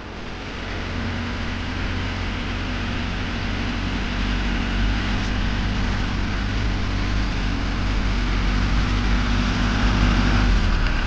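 Vehicle engine running steadily with a low hum. It starts suddenly and slowly grows louder.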